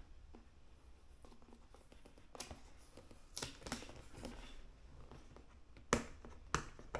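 Cardboard box and packaging being handled during an unboxing: about five sharp taps and clicks with faint rustling between, the two loudest near the end.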